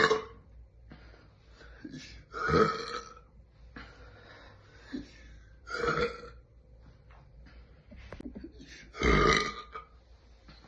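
A person letting out deep burps: three loud ones about three seconds apart, the last the loudest, with a couple of small ones between.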